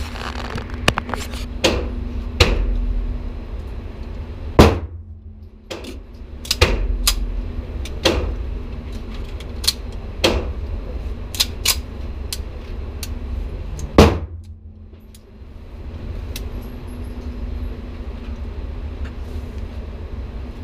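Gunshots at an indoor shooting range: two loud reports about nine seconds apart, with many fainter shots and clicks between them, over a steady low hum.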